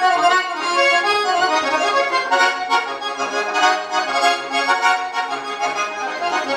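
Solo button accordion playing a fast, busy passage of quick notes over held chords.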